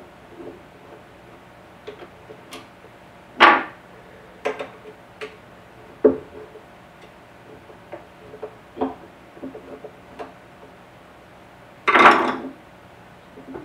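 Scattered metal clicks and clinks of hands and tools working on a lathe's gear train and bench, with two louder clattering knocks, one about three and a half seconds in and one near the end.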